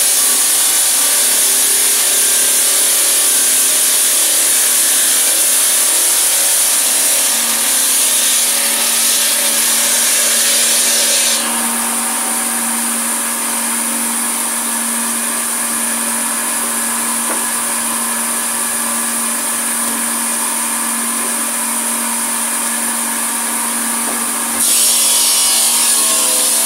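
Marble-cutting bridge saw's circular blade running and cutting through marble slabs, a loud steady grinding hiss. About eleven seconds in it drops to a quieter run with a steady low hum, and near the end the loud cutting sound returns.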